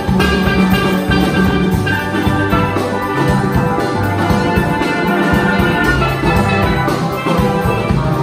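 Steelband ensemble playing live: tenor, double tenor and cello steel pans ringing out a melody and chords over a drum kit keeping a steady beat.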